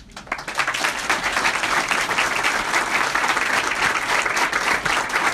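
Audience applauding, many hands clapping in a dense, steady patter that starts at once and keeps up.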